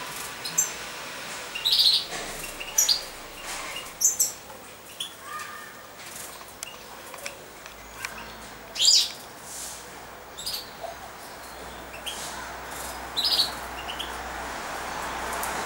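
Caged European goldfinches and a canary chirping: a dozen or so short, separate high calls scattered through, with gaps between them.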